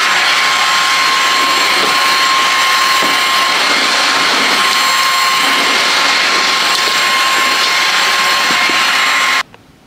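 Cordless wet-and-dry vacuum floor washer running steadily on a wooden floor: an even rush of air under a high motor whine. It is switched off abruptly near the end.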